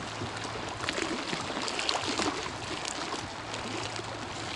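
Small waves lapping and splashing against a concrete bank, a steady wash of water with scattered small splashes.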